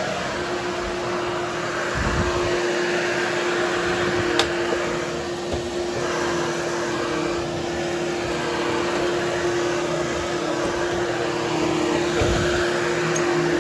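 Hoover Hushtone upright vacuum running with a steady hum while it grooms a berber carpet, its whooshing noise swelling and fading every few seconds as it is pushed over the pile. A single sharp click about four and a half seconds in.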